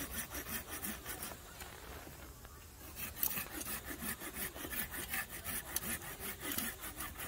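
Hand saw cutting through a wooden tree branch, rasping back and forth at about four strokes a second. The strokes break off for a moment about a second and a half in, then start again.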